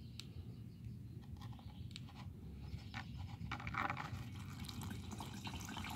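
Old gasoline poured in a thin stream from a plastic container onto a paper coffee filter in a plastic funnel: a faint, irregular trickling and dripping that grows busier about three and a half seconds in.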